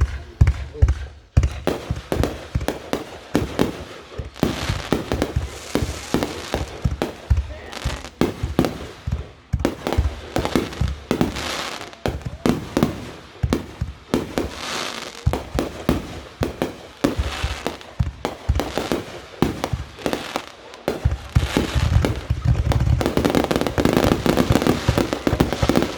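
Fireworks going off in a rapid barrage of bangs and crackles, growing denser and louder near the end: the closing finale of the show.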